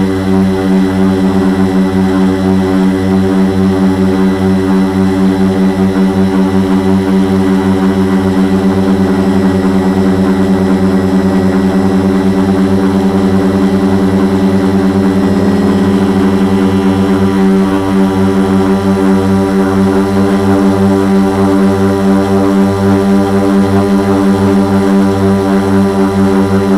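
Brushless motors (Multistar 2212 920kv) and 10x4.5 propellers of a quadcopter in flight, heard from a camera mounted on its frame: a loud, steady whining hum made of several stacked tones, wavering slightly in pitch and level.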